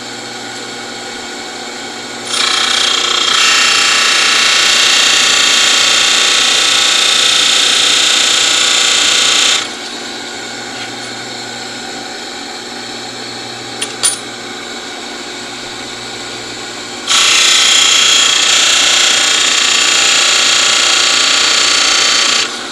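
Mini belt/disc sander running steadily, with a steel lathe threading tool pressed against it twice for several seconds each, a loud hissing grind as the tool's flank is ground. The first pass starts about two seconds in and the second comes in the last five seconds. A brief click falls between them.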